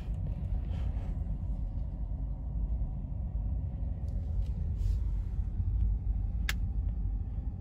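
Low rumble of a car driving on a tarmac road, heard from inside the cabin, with one sharp click about six and a half seconds in.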